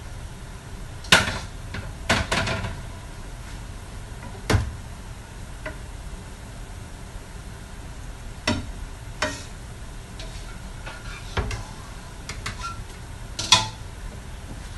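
Spatula knocking and scraping against a wok as cooked food is served onto a plate: about eight sharp clacks, spaced a second or more apart, over a steady low hiss.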